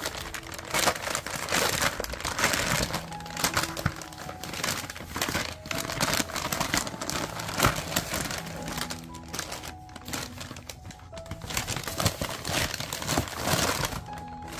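Packaging crinkling and rustling with irregular clicks as it is handled, over soft background music with held notes.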